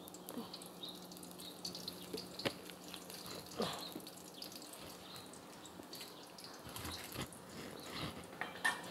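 Cooking oil poured from a plastic bottle into a hot iron karai on a gas burner: a faint trickle and sizzle, with a few light clinks and knocks as the bottle and dishes are set down.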